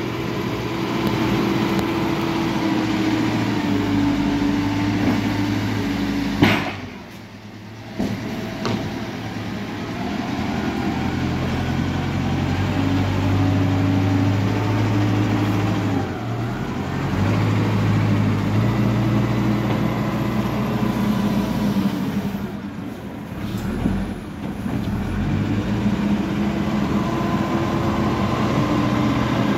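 Hidromek backhoe loader's diesel engine running under load, its pitch rising and falling as it works. The sound drops away briefly twice, about six seconds in after a sharp click and again about twenty-two seconds in.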